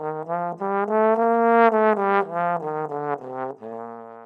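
A trombone plays a short solo phrase of separate notes. The notes climb to a longer held note in the middle, then step back down and end on a sustained low note that fades out.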